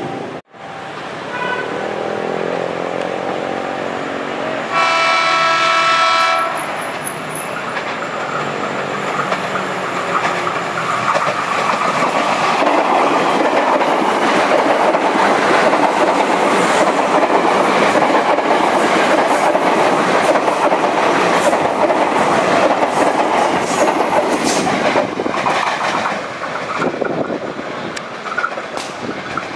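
KRL Commuterline electric commuter train sounding one horn blast of about a second and a half, about five seconds in. It then passes close by with a loud rumble and the clickety-clack of wheels over the rail joints, easing off near the end.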